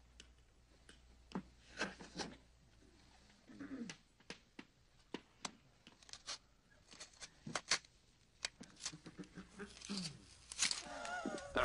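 Freddy Krueger's bladed glove as a film sound effect: irregular, sharp metallic clicks and short scrapes of the finger blades, quiet overall, with a brief wavering pitched sound near the end.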